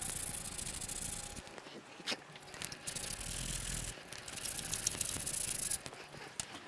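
A strip of 80-grit abrasive cloth pulled back and forth across the rusty steel frame tube of a BMW R90/6 motorcycle, sanding off corrosion: a scratchy rubbing in two bouts, one at the start and another from about four seconds in, with a quieter gap holding a few small clicks.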